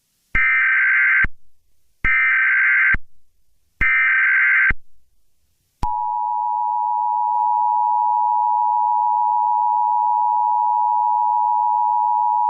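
Emergency Alert System SAME header: three short bursts of warbling data tones, each just under a second. About six seconds in, the EAS two-tone attention signal starts, a steady dual tone that is held, announcing the alert message to follow.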